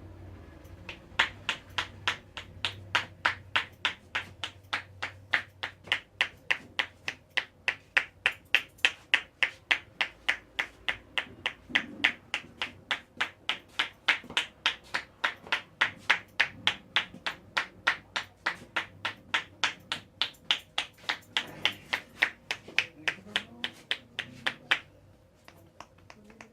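Hands making a fast, even run of sharp claps or snaps, about three a second, that stops abruptly near the end.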